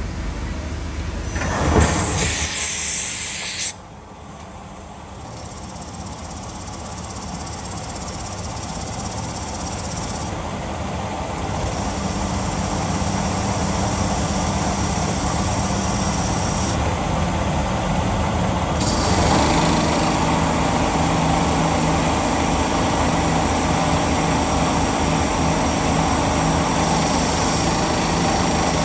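CNC machine running while cutting a metal flange. About two seconds in there is a loud hissing burst that cuts off suddenly, then the machine noise builds steadily, with a steady hum growing stronger in the second half.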